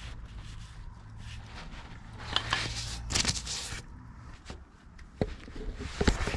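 Handling noises under a vehicle: scraping and rustling with a few sharp knocks as a gloved hand works at the engine block, applying gasket shellac around a freeze plug hole. A steady low hum runs underneath during the first half.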